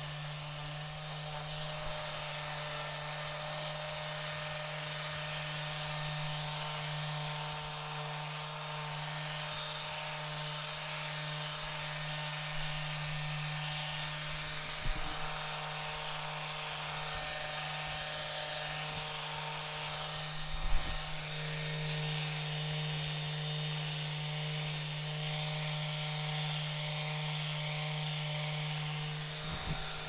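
Handheld rapid release therapy device vibrating very fast against the patient's back and neck: a steady electric buzz with a low hum under a bright high hiss. A couple of brief knocks, the louder about two-thirds of the way in.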